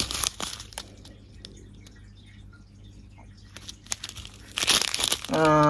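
Clear plastic zip bag of diamond-painting drills crinkling as it is handled, with spells of crinkle in the first second and again about four and a half seconds in. Near the end a loud, steady tone at one fixed pitch sets in.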